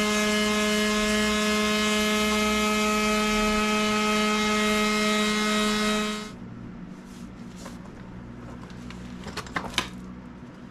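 Battery-powered mouse sander running at a steady pitch on a wooden axe handle, with a hiss of abrasive over the buzz of the motor. It switches off about six seconds in. After that come quieter handling sounds and a couple of sharp knocks near the end.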